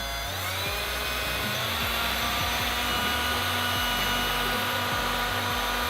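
Electric drill finishing its spin-up and running steadily at speed, a high whine over hiss, while the bore of a brass shifter bushing is worked to open it up slightly.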